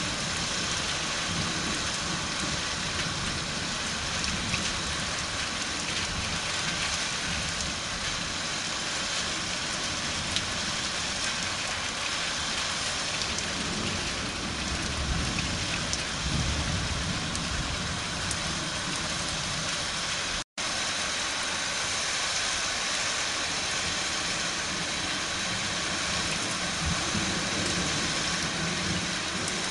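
Steady rain falling during a thunderstorm, with faint low rumbles of distant thunder now and then. The sound cuts out for an instant about two-thirds of the way through.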